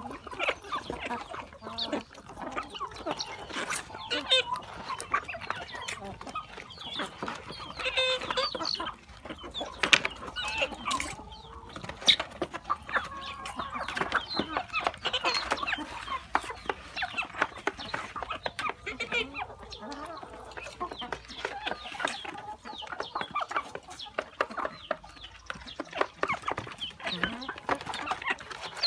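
Hens and roosters clucking as they feed, with many quick taps of beaks pecking at coconut halves and a plastic feed tray.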